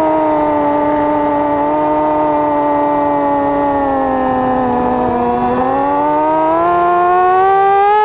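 FPV quadcopter's electric motors and propellers whining, heard from the onboard camera; the pitch sinks slowly until about five seconds in, then climbs as the throttle comes up.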